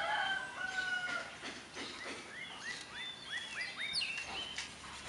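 Birds calling in the background: a drawn-out call in the first second, then a quick run of about five short rising chirps and a falling note a little before four seconds.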